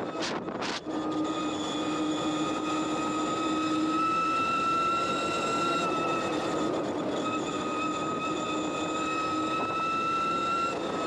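Electric ATV's motor whining at a steady high pitch while riding, over a rushing noise. The whine breaks off with a few knocks in the first second, then comes back and holds steady.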